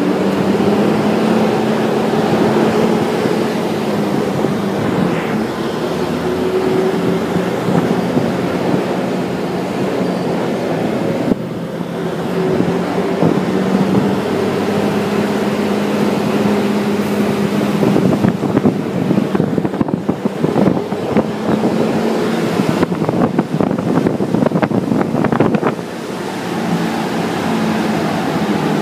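A motor vehicle's engine running, with road noise: a steady drone whose pitch shifts a little now and then. Between about 18 and 25 seconds in there is a stretch of rattling and knocking.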